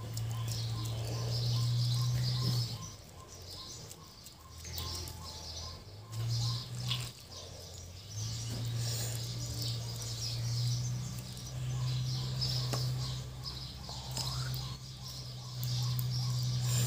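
Small birds chirping and calling, over a loud low steady hum that breaks off and resumes several times.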